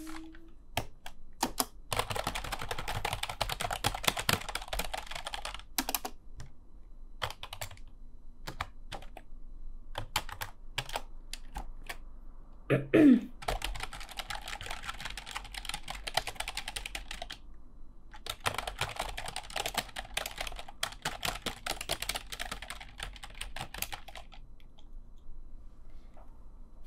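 Fast typing on a computer keyboard in three long runs, with single key taps in the pauses between. About halfway through, a brief loud squeak that falls in pitch.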